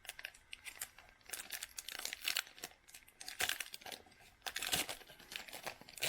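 Plastic wrapper of a Donruss Optic basketball card pack crinkling and tearing as it is ripped open, in irregular crackly bursts.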